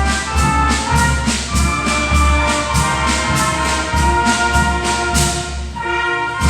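Brass band music: trumpets and trombones play over a steady beat of about four drum or cymbal strokes a second, with a short break near the end.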